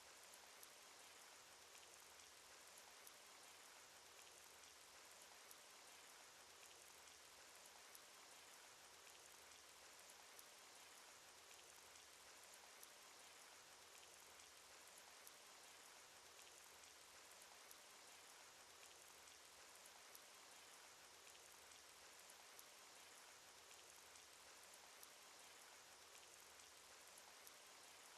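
Faint, steady rain sound effect: an even hiss of rainfall with many small, sharp drop ticks scattered through it.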